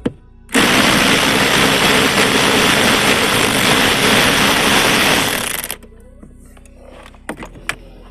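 Handheld power driver running in one loud, rattling burst of about five seconds, starting about half a second in and cutting off abruptly, as it drives out a dash fastener.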